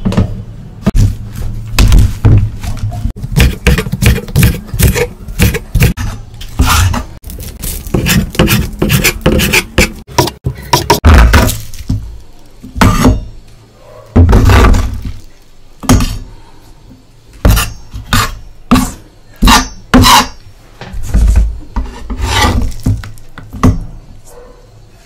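Kitchen knife chopping green onions on a wooden cutting board: a run of irregular sharp knocks of the blade on the wood, mixed with scraping and rubbing.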